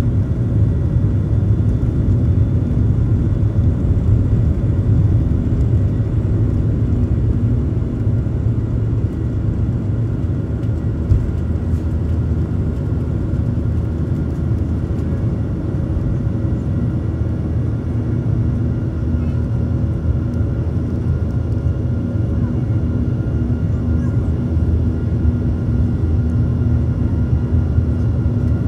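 Boeing 737 jet engines at takeoff thrust, heard from inside the cabin over the wing. A loud, steady low rumble with a few steady whining tones above it carries on through the end of the takeoff run, the liftoff and the climb-out.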